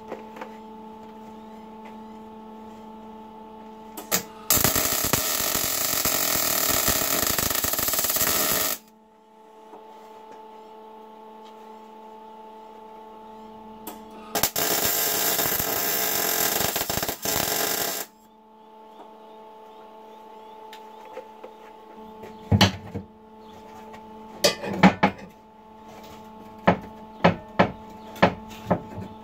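Arc welding a steel nut onto a BMW E36 front subframe: two bursts of steady welding-arc hiss, each about four seconds long, starting and stopping abruptly, over a steady electrical hum. Several sharp metallic taps follow near the end.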